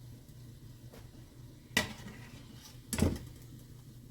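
Two sharp clattering knocks of kitchen utensils against cookware, a little over a second apart, the second the louder, over a faint steady low hum.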